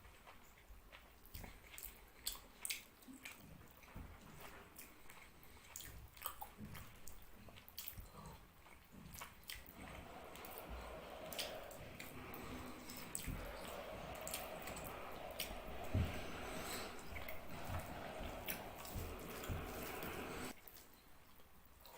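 Close-up chewing and biting of a mouthful of fish curry and rice, with wet squishes and many small mouth clicks. A steady background noise comes in about halfway and cuts off suddenly near the end.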